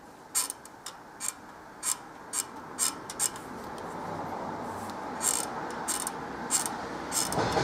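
Pillar drill's stepped motor pulley clicking and knocking about twice a second over the steady sound of the drill running, which grows louder about halfway through. The owner takes the knock for the pulley being loose on its shaft and thrown out of balance by a large bolt in it.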